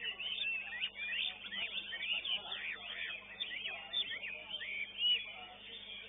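Caged competition songbirds singing together: a dense stream of quick chirps, trills and whistles that thins out near the end.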